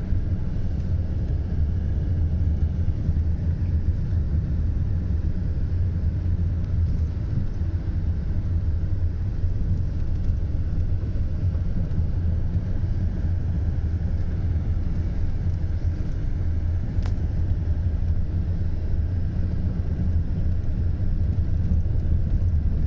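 Car driving slowly over a poor, bumpy road: a steady low rumble of engine and tyres.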